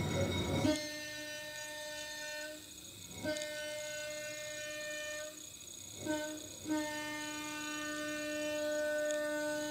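Diesel locomotive's air horn sounding the grade-crossing signal: two long blasts, one short, then a final long one, each a single steady note. The first blast comes in under a second in, over a brief low rumble.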